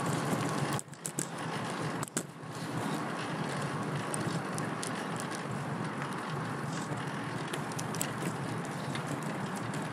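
Steady rushing noise of a fixed-gear bicycle being ridden, tyres on the road and air rushing past, with scattered small clicks. The rush drops away briefly twice in the first couple of seconds.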